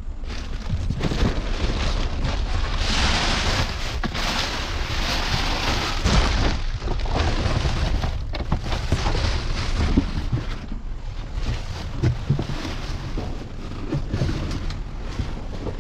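Rummaging through cardboard boxes and plastic bags inside a metal dumpster: steady rustling and crinkling with scattered knocks and thumps, over a constant low rumble on the microphone. The rustling is loudest and hissiest about three to six seconds in.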